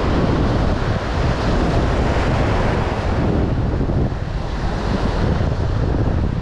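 Wind buffeting the microphone over the steady rush of sea surf, loud and unbroken.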